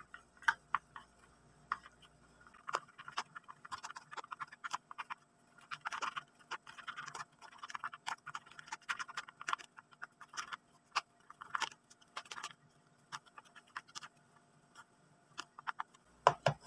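Wooden craft stick stirring a thick white slime mixture in a plastic tub, with irregular light scraping and clicking of the stick against the tub's sides and bottom.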